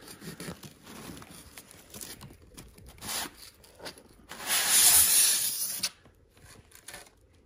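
Styrofoam packing block being pulled out of a cardboard box, scraping and rubbing against the cardboard in one loud burst lasting about a second and a half, a little past the middle. Light cardboard rustling and handling come before it.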